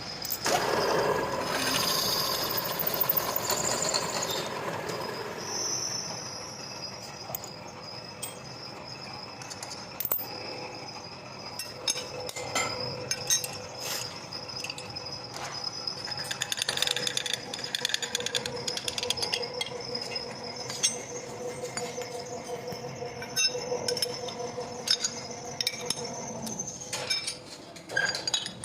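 Machine-shop work noise: a steady machine tone under many scattered light metallic clinks and knocks.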